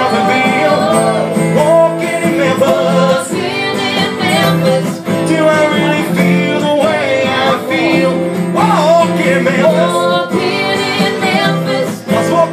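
Live song with a man and a woman singing into microphones over an acoustic guitar.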